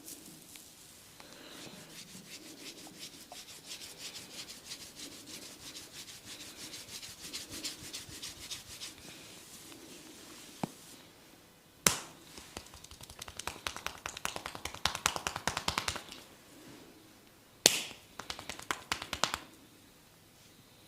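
Fingers rubbing and scratching through hair on the scalp during a head massage: a fast, crackly rustle close to the microphone, broken by a few sharp clicks about halfway through and again near the end.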